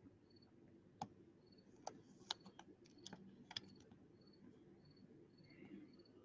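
Faint scattered clicks and taps of trading cards being handled, with a few sharper clicks between about one and four seconds in.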